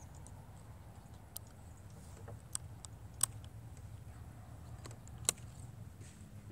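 A few short, sharp clicks over a low steady rumble: the bullpup PCP air rifle being handled on its bench rest. The two loudest clicks come about three and five seconds in.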